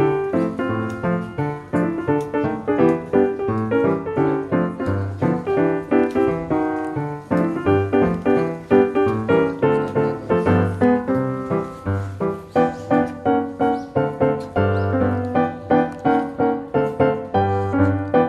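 Background piano music with a steady beat.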